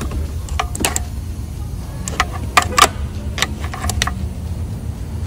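Scattered metallic clicks and clinks of a hand tool on the engine as it is turned over by hand, some in quick pairs, over a steady low hum.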